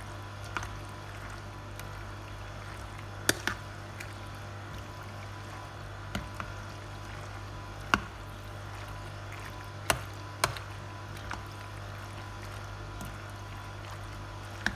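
Macaroni salad in mayonnaise dressing being stirred with a spoon in a stainless-steel bowl: wet squishing, with sharp clinks every few seconds as the spoon knocks against the bowl, over a steady low hum.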